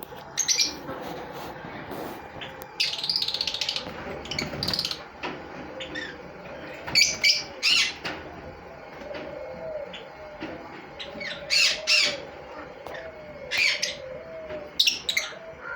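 Pet lovebirds giving shrill chirps and squawks in short, sharp bursts, over and over, in clusters every second or two.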